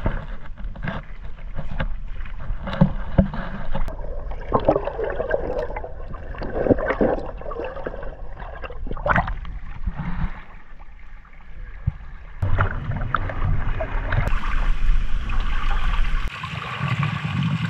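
Water splashing and sloshing irregularly as people wade through shallow lake water, with a low steady rumble underneath that stops near the end.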